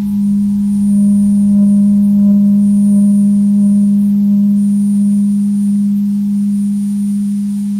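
Droning music from a cassette tape: one loud, sustained low tone with fainter steady tones above it and a thin high whine, swelling slightly in the first second, then easing off slowly.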